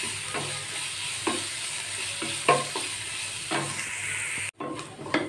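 Chopped onions and green chillies sizzling in hot oil in a nonstick kadai while a wooden spatula stirs them, scraping the pan about once a second. The sound drops out for an instant about four and a half seconds in.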